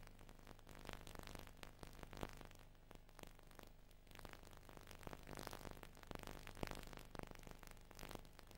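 Near silence: a faint steady low hum and hiss, with scattered faint clicks.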